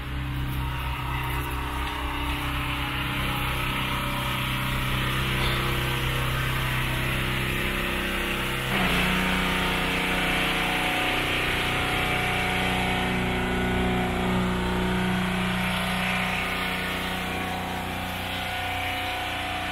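A motor running steadily, its pitch stepping up and getting louder about nine seconds in, then holding.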